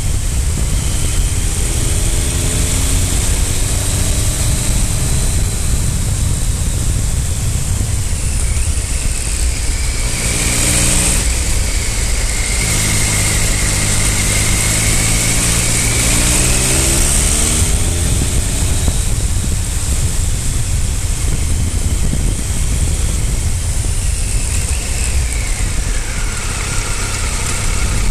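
Triumph Speed Triple 955i's inline three-cylinder engine running on the move, with heavy wind rush on the microphone. The engine pitch rises as the bike accelerates a couple of seconds in, and again around the middle.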